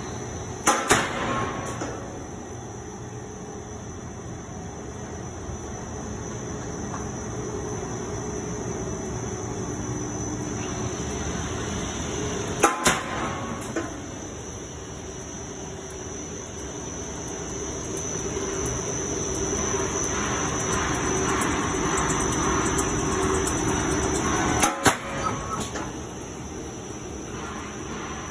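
Steady drone of spray-dryer plant machinery running, with three sharp clicks spaced about twelve seconds apart.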